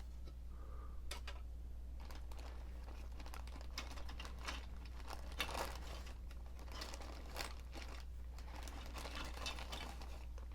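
Plastic bags and model-kit parts crinkling and rustling as they are handled, in irregular crackles over a steady low hum.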